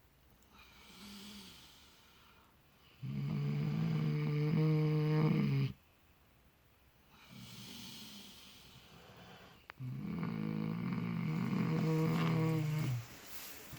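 Sleeping miniature potbellied pigs snoring: two long snores of about three seconds each, with softer breathing between.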